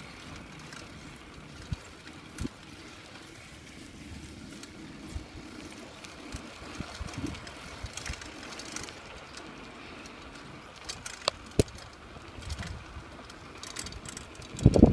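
Bicycle ride over open ground: a steady low rumble of tyres and wind on the microphone, broken by a few sharp clicks and knocks.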